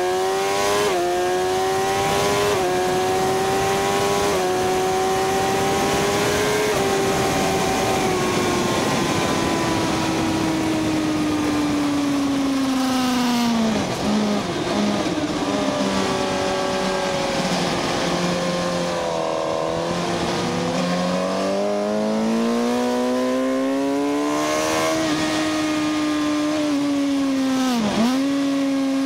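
Sport motorcycle engine revving hard from an onboard microphone, with constant wind rush. It pulls up through a couple of quick gear changes, eases off and steps down through several downshifts about halfway, then accelerates again, with one more sharp gear change near the end.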